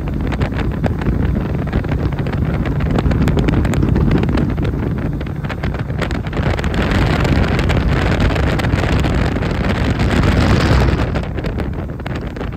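Boat motor running at speed with the hull on plane, under heavy wind buffeting on the microphone and rushing water. A louder rush swells in about halfway through and eases off near the end.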